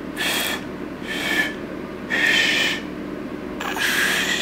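Failed finger-whistle attempts: four short, breathy blasts of air blown through fingers held in the mouth, with no clear whistle tone, just sounding like breathing out.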